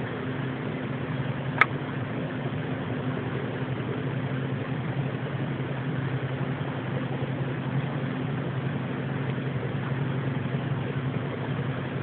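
A steady low droning hum of unknown origin that sounds like a distant helicopter, with one sharp click about a second and a half in.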